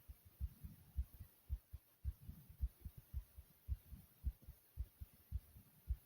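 A human heartbeat heard close up, a steady rhythm of low, muffled lub-dub thumps.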